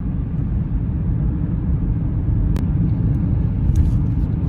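Car driving along a highway, heard from inside the cabin: a steady, loud low rumble of tyre and road noise with the engine underneath.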